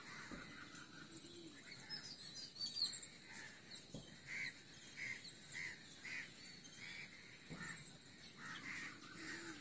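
Faint birdsong: high, thin chirps about two seconds in, then a bird repeating short whistled notes about twice a second.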